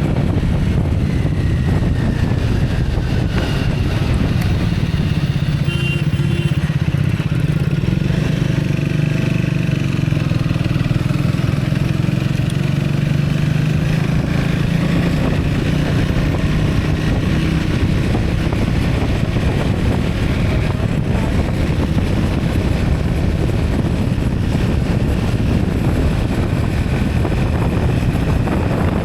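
Steady engine and road rumble of a moving vehicle, with wind on the microphone.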